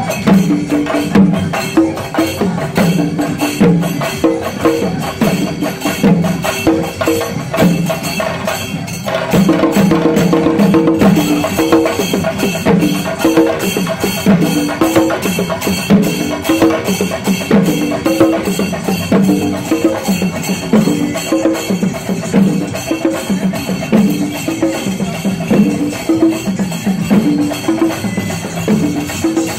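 Chenda drums beaten with sticks in a fast, steady festival rhythm, with sharp stick clacks and metallic cymbal strokes keeping time. The pattern shifts briefly about nine seconds in.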